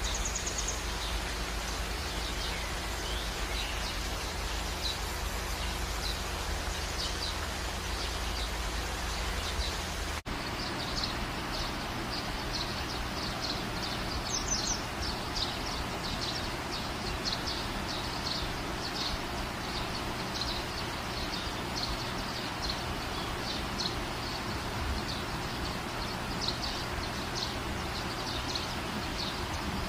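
Steady outdoor background hiss with small birds chirping over and over in the background. A low rumble under it stops abruptly about ten seconds in.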